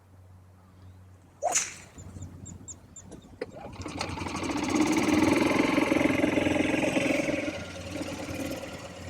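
A sharp crack about a second and a half in, then a motor vehicle's engine coming closer and passing, growing louder for a few seconds and then fading.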